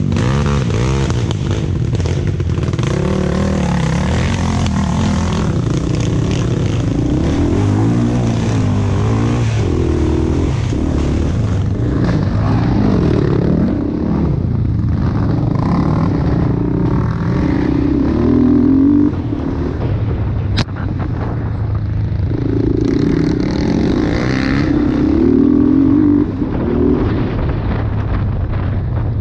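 ATV engine running while being ridden, its pitch rising and falling as the throttle is opened and eased off. A single sharp click comes a little past two-thirds of the way through.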